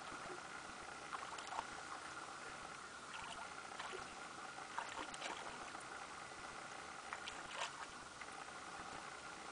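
Small water splashes and lapping over a faint steady hiss, with a handful of short sharp splashes scattered through.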